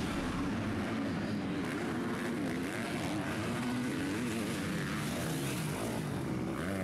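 Motocross bike engines revving on the track, their pitch rising and falling over and over as riders work the throttle, more than one bike at a time.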